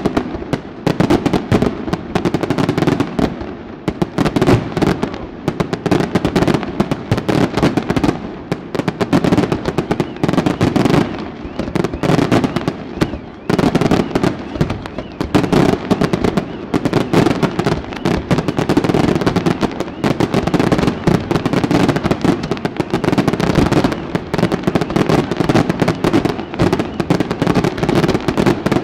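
Aerial fireworks display: a dense, near-continuous barrage of shell bursts and bangs with crackling, easing only in brief lulls.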